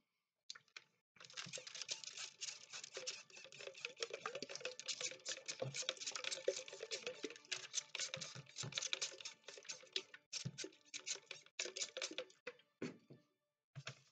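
Rapid, dense dry crackling and tapping as items in a newspaper-lined plastic reptile tub are handled and rubbed. It goes almost without a break for about eleven seconds, then thins to a few scattered clicks near the end.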